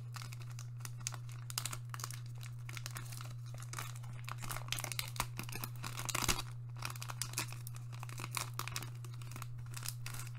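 Foil wrapper of a trading card booster pack crinkling and tearing as it is opened by hand, in irregular crackly rustles, over a steady low hum.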